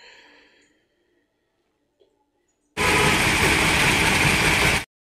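Flour mill grinding dry grain, its machinery running with a loud, even noise that starts abruptly about three seconds in and cuts off sharply two seconds later.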